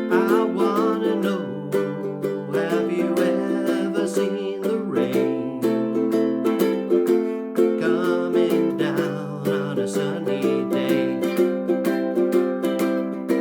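Enya EUC-MAD ukulele with Aquila Lava strings and a low G, strummed in a steady chord rhythm.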